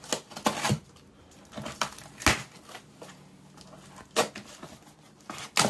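A mailed package being torn open by hand: a series of short, sharp rips and crackles of packaging, irregularly spaced, with quieter handling between them.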